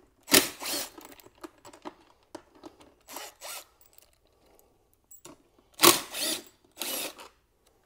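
Tool work on the motorcycle's tail-section M6 bolts as they are unscrewed: four short bursts of tool noise, with small metallic clicks and taps between.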